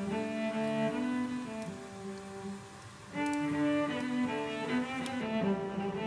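Background music of slow, held notes in a low-to-middle register, fading down in the middle and coming back louder about three seconds in.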